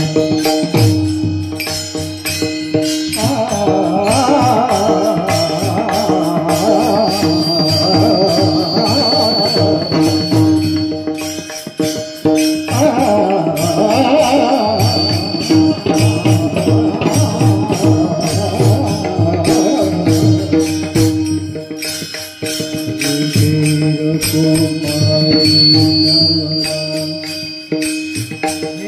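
Marathi abhang devotional music: a steady held drone under rhythmic percussion with jingling, and a wavering melody line that comes in twice for several seconds each time.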